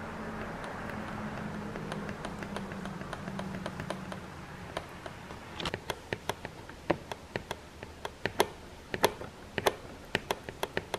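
Cue-lift mechanism of a Technics SL-BD turntable being pulled up and down by hand to work fresh oil into its gummed-up lift and spring, giving irregular small clicks and taps, two or three a second, from about halfway in. A faint steady hum comes before the clicks.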